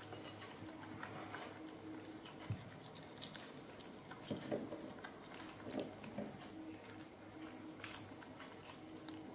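Young macaques eating jackfruit: soft, scattered clicks, smacks and rustles of fingers tearing and handling the fruit, with a sharper click near the end.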